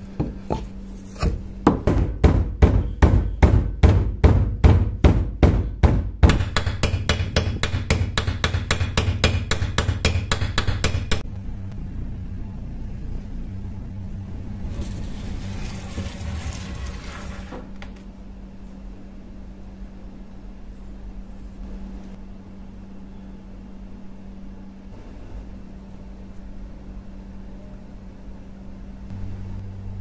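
Steel hammer head being knocked onto its wooden handle: a run of sharp knocks at about three a second, then a quicker run of lighter taps for some five seconds. A short hiss follows near the middle, then only a low steady hum.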